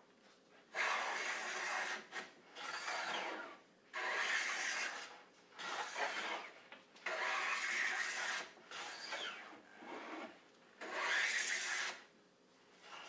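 Lie-Nielsen No. 7 jointer plane taking shavings off the edge of a padauk board: a run of about eight strokes, each about a second long, with short pauses between.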